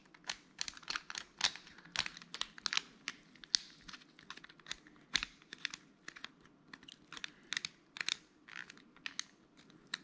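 The four number dials of a combination cable bike lock are rolled by hand and scrambled to a new code, giving quick, irregular clicks, several a second.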